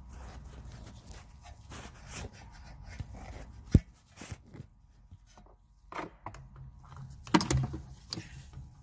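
Scattered metal clicks and knocks of a socket and wrench being handled on a suspension nut. There is one sharp knock just before the middle and a short cluster of knocks near the end.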